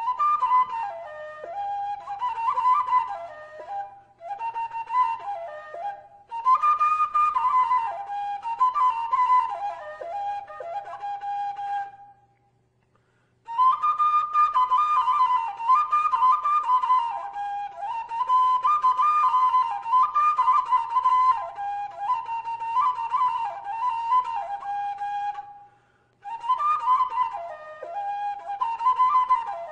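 Background music: a single melody line played in phrases, with short pauses between them and a longer break of about a second near the middle.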